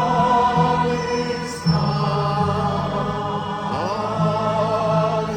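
Mass choir singing sustained notes with vibrato over held orchestral bass notes that change every second or so.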